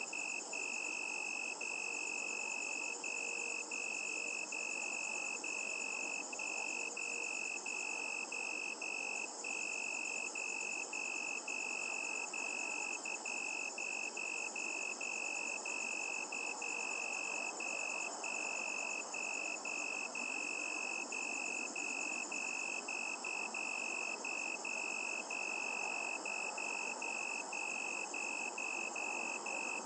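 Crickets trilling in a steady night chorus: one high, continuous trill broken by brief gaps, with fainter, higher trills above it over a soft hiss.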